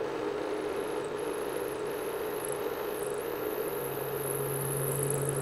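Precision Matthews PM-727 benchtop milling machine running a roughing end mill through a channel in the workpiece under hand feed. A steady hum with a high whine that dips briefly several times, and a lower steady tone joining past the middle.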